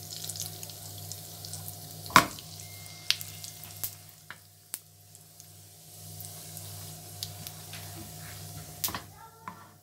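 Cumin seeds sizzling and crackling in hot oil for a tempering (baghar), with scattered sharp pops and clicks. The loudest click comes about two seconds in.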